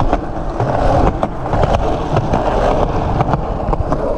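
Skateboard wheels rolling on a concrete sidewalk: a steady rolling rumble broken by irregular clacks as the wheels cross the joints between slabs.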